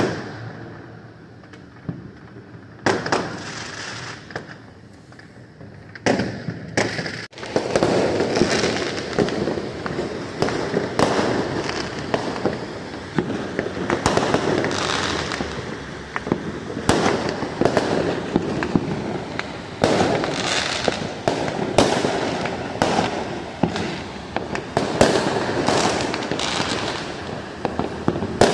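Aerial fireworks going off: a few separate bangs at first, then from about seven seconds in a dense, continuous barrage of overlapping bangs and crackling.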